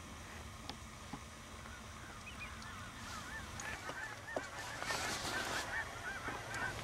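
A flock of waterfowl calling, many short honking calls overlapping. They start about two and a half seconds in and grow into a thicker chorus toward the end.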